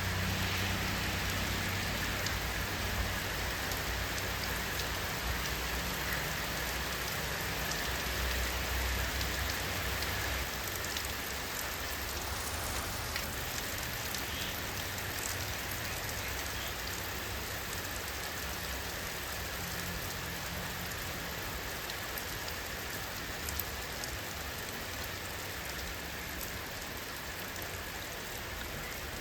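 Steady rainfall pattering on surfaces, an even hiss with scattered drop ticks, over a low rumble that fades out about halfway through.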